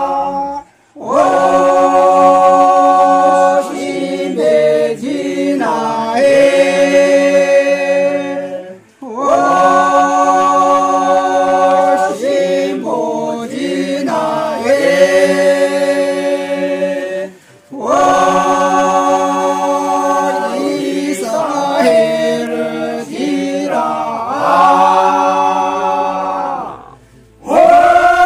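Unaccompanied group singing: long held notes joined by gliding changes of pitch, in phrases of about eight seconds with short pauses between them.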